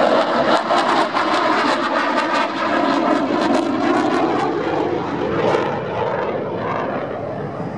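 Jet noise from a Saab JAS-39 Gripen's single Volvo RM12 turbofan at high power during a display manoeuvre, a steady rush with a rapid, ragged crackle. The noise and crackle ease a little near the end as the jet moves away.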